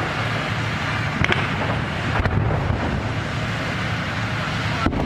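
Military truck engines running with a steady low rumble, wind buffeting the microphone, and a couple of sharp cracks, about a second in and again just after two seconds.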